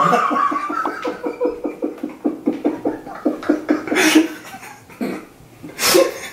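A man laughing hard: a quick run of 'ha-ha' pulses, about five a second, then a couple of sharp breathy gasps near the end.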